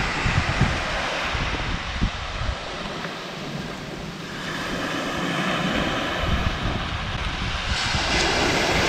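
Wind buffeting the microphone over the wash of small waves on a sandy shore, a steady hiss with uneven low rumbling.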